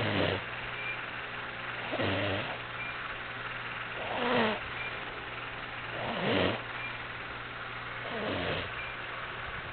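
An ox snoring in its sleep: five raspy snoring breaths, evenly about two seconds apart.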